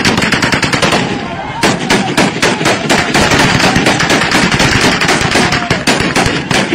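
Celebratory gunfire at a wedding: many sharp shots in quick, irregular succession, over the voices of a large crowd of men.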